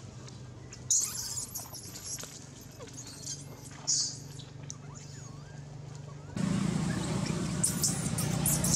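Infant long-tailed macaque giving high, wavering squeals. About two-thirds through, a louder steady background noise with a low hum cuts in suddenly, and more squeaks come over it.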